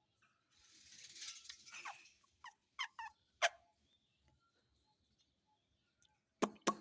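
Pet talking parrot making a scratchy, hissing squawk, then a run of short sharp calls and clicks, with two loud sharp squawks near the end.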